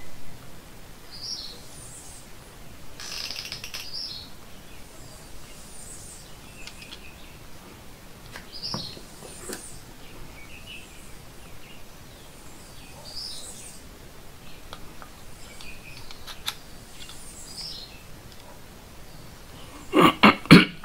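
Birds chirping in short calls every second or two. Under them are small clicks and a brief scrape from cylindrical lithium-ion cells being handled and fitted into a plastic battery cell holder, with a few loud sharp knocks near the end.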